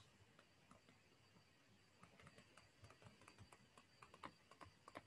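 Near silence, with faint, irregular light taps of a stylus on a tablet screen starting about two seconds in.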